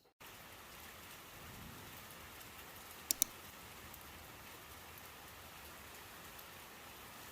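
A steady, even rain-like hiss that cuts in abruptly at the start, with two sharp clicks in quick succession about three seconds in.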